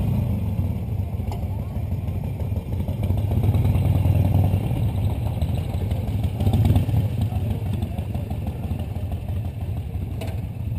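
Motorcycle engines running at low speed, a steady low engine sound that swells briefly about four and about seven seconds in.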